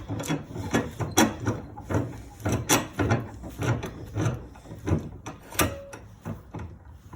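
Small metal and wooden pen-kit parts clicking and knocking as they are handled and fitted together: a run of irregular sharp clicks, thinning out near the end.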